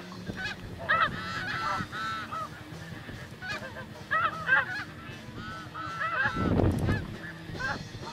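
A flock of snow geese calling: many short, high yelping honks overlapping one another. Wind buffets the microphone with a low rumble a little after six seconds in.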